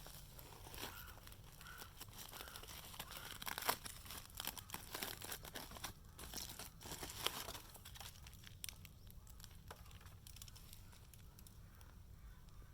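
Crinkling, rustling and tearing of something dry being handled, as a run of small crackles that is busiest in the first eight seconds and then thins out.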